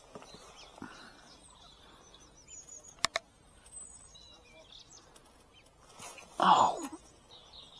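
Small birds chirping and twittering in short high calls over quiet outdoor background noise. There is a sharp click about three seconds in, and a louder short cry about six and a half seconds in.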